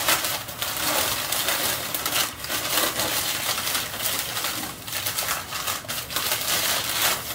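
Newspaper packing crinkling and rustling as a wrapped item is pulled out and unwrapped by hand, a steady crackle dotted with sharp little crackles.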